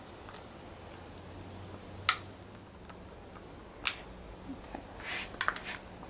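A few sharp little clicks and taps of a wooden craft stick and glassware knocking together as epoxy is spread around the base of a glass dish: the loudest about two seconds in, another near four seconds, and a quick cluster near the end.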